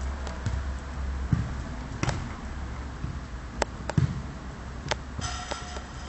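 Scattered light knocks and taps from loose wooden boards and metal channel studs shifting as a cat walks across them, about six in all. A short pitched squeak sounds near the end.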